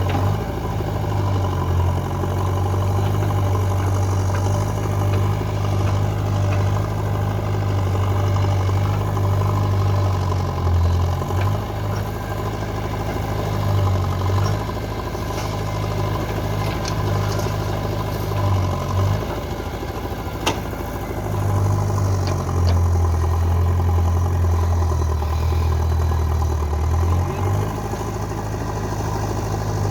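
Engine of heavy machinery running steadily, its low hum swelling and easing again several times as the load or throttle changes. A single sharp click about two-thirds of the way through.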